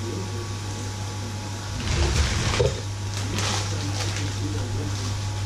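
A plastic bag of frozen food rustling and crackling as it is handled, with a few knocks, from about two seconds in, over a steady low kitchen hum.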